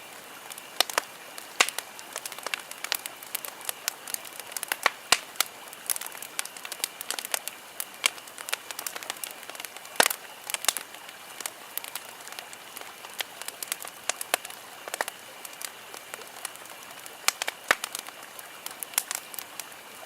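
Campfire crackling: irregular sharp pops and snaps, a few of them much louder, over a steady faint hiss.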